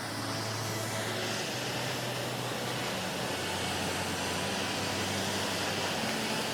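Steady rushing noise with a faint low hum underneath.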